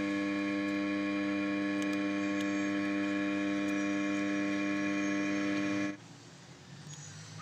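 A steady electrical hum with many overtones at a constant pitch, which cuts off suddenly about six seconds in.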